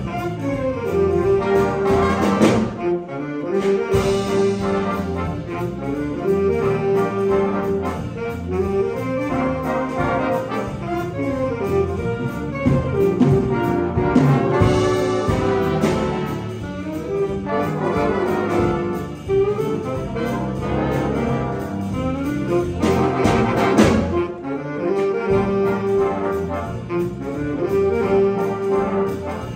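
Jazz big band playing live, with saxophone, trumpet and trombone sections sounding together in sustained ensemble chords.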